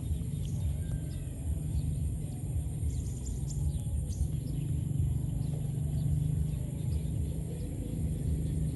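Outdoor ambience: a steady low rumble with faint, scattered bird chirps and a thin, steady high-pitched tone above it.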